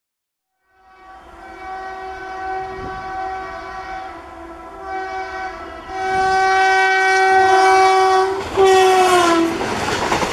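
WAP-4 electric locomotive's horn sounding in three blasts as the express approaches, the last and loudest dropping in pitch as the locomotive passes. It is followed by the noise of the passenger coaches rushing by.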